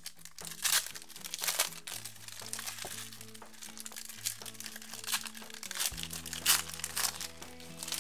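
Foil trading-card pack wrappers being crinkled and torn open by hand, in several sharp crinkling bursts, the loudest about a second in, at about one and a half seconds, and past six seconds. Background music with sustained low notes plays under them.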